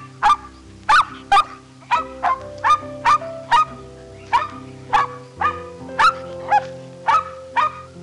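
Dog barking in a quick, steady series of short barks, about two a second, over soft background music with sustained chords.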